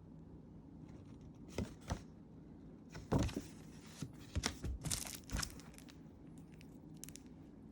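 Card packaging being handled by hand: a few sharp clicks, then paper or plastic rustling and crinkling in short bursts over a low steady hum.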